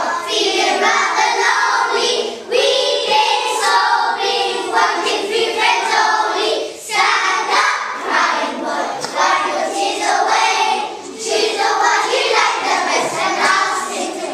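A group of young children singing together in unison, in phrases of a few seconds with brief breaks between them.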